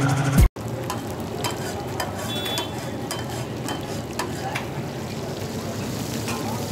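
Chicken pieces sizzling on a large flat iron tawa, with a metal spatula scraping and tapping against the griddle now and then as the pieces are turned. A snatch of music cuts off about half a second in.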